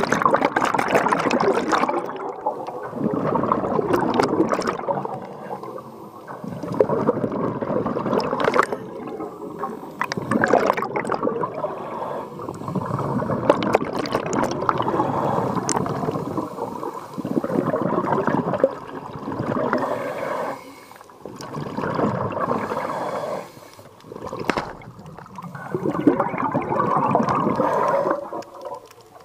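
Scuba diver breathing underwater through a regulator: exhaled bubbles gurgling out in bursts of a second or two, every few seconds.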